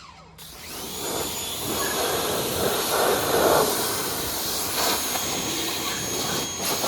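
Pressure washer starting up as the trigger is squeezed: its motor whine rises within the first second to a steady high pitch, over the hiss of the high-pressure water jet.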